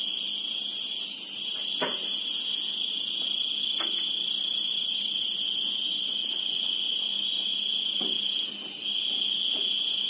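Chorus of night insects trilling, several steady high-pitched calls at once over a pulsing chirr; the highest call stops about two-thirds of the way through.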